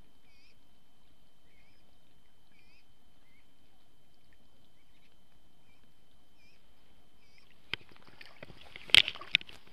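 Quiet outdoor ambience with faint chirps now and then. Near the end come a few sharp knocks and rustling as a herabuna pole rod is lifted and a hooked crucian carp is played.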